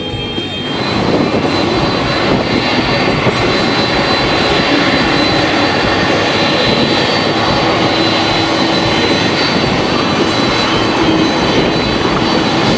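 Jet engines of a KLM Boeing 747 running loud on the runway: a dense, steady rush of noise with a high whine, starting about a second in.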